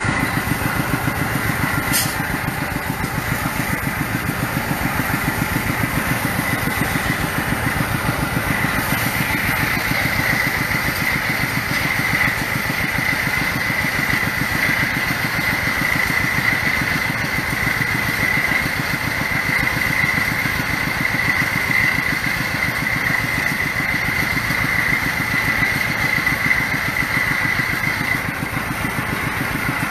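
Small engine of a water-well drilling rig running steadily, driving the drill rod into the ground, with a fast even pulse and a steady high whine over it.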